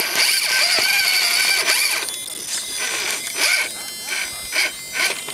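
RC rock crawler's 55-turn electric motor and gear drivetrain whining under load as it climbs. The whine is steady for about two seconds, then comes in about seven short bursts as the throttle is blipped.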